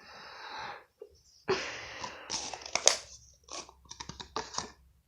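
Glitter slime being squished and stretched by hand, crackling and squelching, with a run of sharp little pops near the end.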